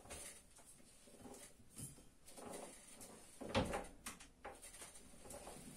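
Scale model Fowler 16 HP ploughing engine turned over by hand at the flywheel: faint clicking and rattling of its gearing and linkage, with one louder knock about three and a half seconds in.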